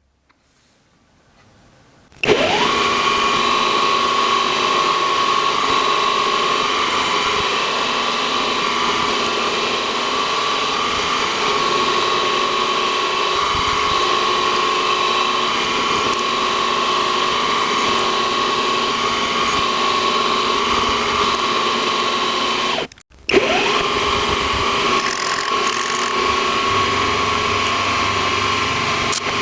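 Electric motor of a shop power tool spinning up about two seconds in, then running steadily with a high whine. It cuts out briefly about three-quarters of the way through and spins up again.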